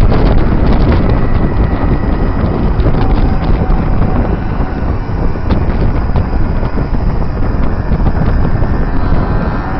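Heavy wind buffeting the microphone of a camera moving along behind a motor scooter, with the steady whine of a small engine underneath.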